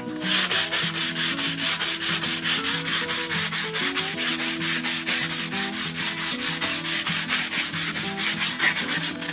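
Sandpaper rubbed by hand across the wooden face of a laminated wood box in quick, even back-and-forth strokes, a dry scratchy hiss that starts a moment in.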